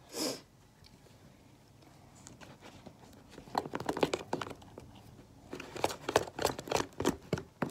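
Fluffy slime mixture of glue and shaving cream being stirred, giving irregular wet clicks and crackles from about halfway through.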